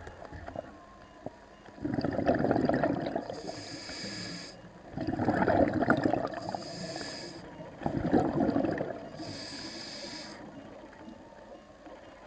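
Scuba diver breathing through a regulator underwater: three breaths about three seconds apart, each a bubbling, crackly rush of exhaled bubbles followed by a short hiss as the next breath is drawn.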